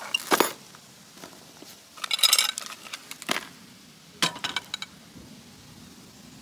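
Metal tongs clinking against a glass bowl in several short clattering bursts. About four seconds in, the bowl is set down on a wooden slat table with a clink.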